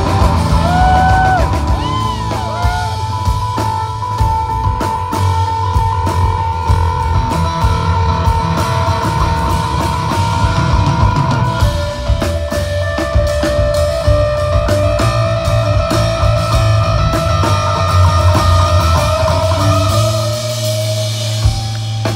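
Live rock band playing loud: electric guitar holding long notes that bend in pitch, over drums and bass. Near the end the drumming drops away, leaving a low held note.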